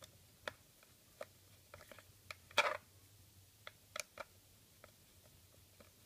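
Small screwdriver clicking and scraping on a screw and the plastic underside of a Dell XPS M1210 laptop: scattered light clicks, the loudest a short scrape about two and a half seconds in.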